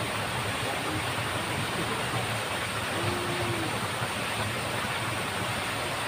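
Steady rushing of water flowing through a small ditch, an even hiss with no breaks.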